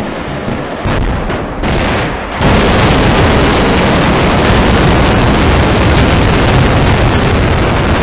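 Hwasong-18 solid-fuel ICBM's rocket motor at liftoff: a rumbling rush of noise that jumps to a loud, steady roar about two and a half seconds in.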